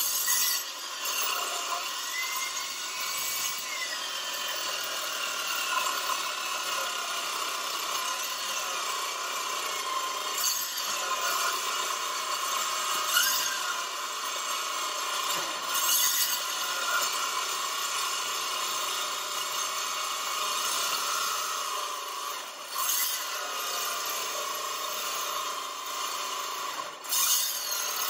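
Milwaukee M18 Fuel 2982-20 8-inch metal-cutting circular saw running under load, its carbide blade cutting continuously through 3/8-inch steel plate: a steady high whine and rasp whose pitch drifts with the load, dipping briefly twice in the last third.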